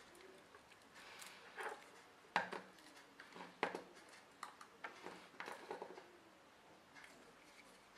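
Light metallic clicks and taps, irregular and a few to the second, as small metal parts and a screwdriver are handled against a laptop hard drive's metal casing during disassembly.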